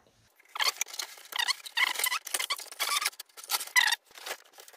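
Cardboard packing insert being pulled and slid out of a large cardboard shipping box: irregular scraping and rustling of cardboard against cardboard, starting about half a second in.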